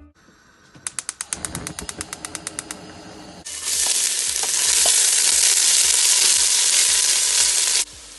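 A quick run of sharp clicks, then chopped onions hitting hot oil in a stainless steel pot: a loud, steady sizzle that starts suddenly about three and a half seconds in and cuts off abruptly near the end.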